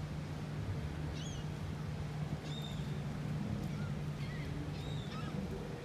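Steady low hum of a cruise ship's engines across the water as it turns, with several short, high chirping bird calls over it.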